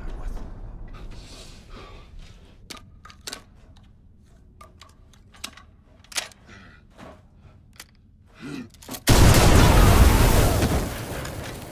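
Film soundtrack of a tunnel fight: a low rumble dying away, then a tense quiet stretch with scattered small clicks and knocks. About nine seconds in comes a sudden loud explosion blast that fades out over a couple of seconds.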